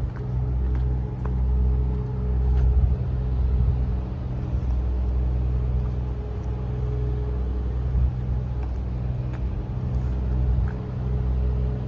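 Grand Central Class 180 diesel multiple unit passing the level crossing: a steady engine drone with a low rumble that holds for the whole stretch.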